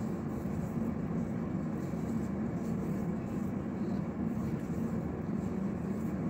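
Steady low background hum, unchanging throughout, of the kind a running fan or air conditioner makes in a small room.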